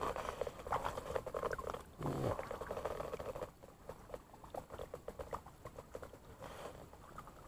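Choppy shallow water lapping and pattering in many small quick splashes, busier for the first three seconds or so, then thinning out.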